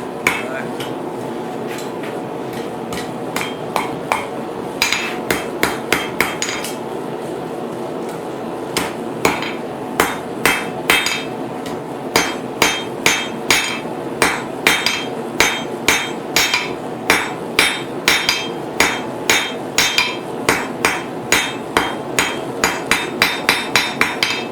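Hand hammer striking hot steel bar stock on an anvil, drawing an end of a fork blank out to a point. A few scattered ringing blows come first, then from about ten seconds in a steady run of about two blows a second, over a steady rushing noise.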